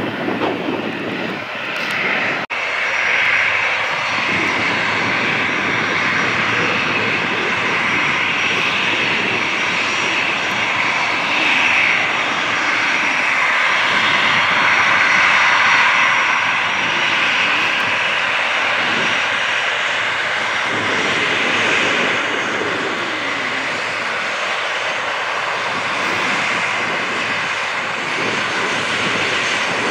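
Turbofan engines of jet airliners running on the ground, among them an Emirates SkyCargo Boeing 777 freighter: a steady rush with a faint high whine, swelling slightly around the middle. It follows a sudden cut about two seconds in from the fading noise of a departing jet.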